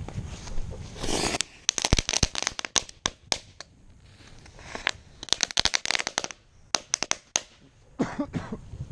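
Consumer fireworks crackling: two spells of rapid, sharp pops, the first about a second in and the second about five seconds in, with a hiss starting up again near the end.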